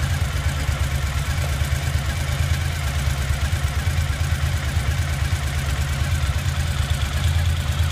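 Suzuki motorcycle engine idling steadily, a continuous low rumble with fast even pulsing.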